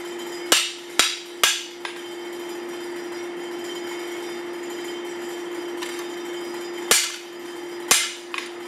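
Hand hammer striking a hot forged chopper blade on an anvil, each blow a sharp metallic clang with a short ring: three quick blows about half a second apart, then after a long pause two more about a second apart. A steady hum runs underneath.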